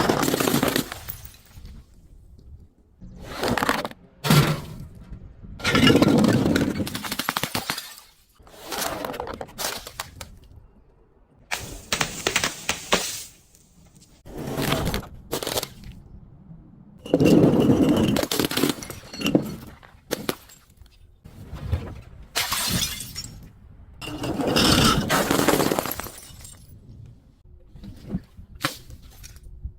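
Glass bottles being broken and crushed: repeated crunching and shattering bursts, each a second or two long, with short pauses between.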